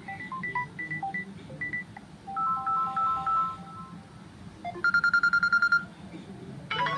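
Samsung Galaxy A04 ringtones playing one after another from the phone's speaker: short beeping electronic melodies, then a fast trill of repeated beeps, about ten a second, around five seconds in, and a fuller plucked-sounding melody starting near the end.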